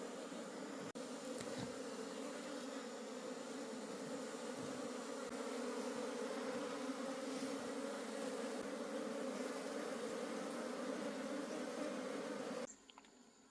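A honey bee colony buzzing: a steady, dense hum of many bees, which cuts off abruptly near the end.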